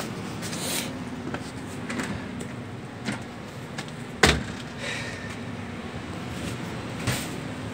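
Handling noise from a phone camera being carried about, with scattered clicks and rustles and one sharp knock about four seconds in, over a steady low hum.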